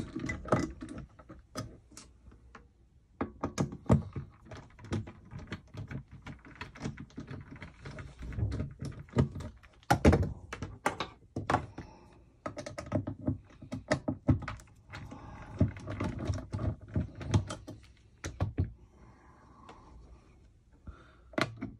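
Irregular clicks, taps and knocks of hand work on a tube amp chassis, with a few louder thunks, as the metal doghouse cover over the filter capacitors is taken off.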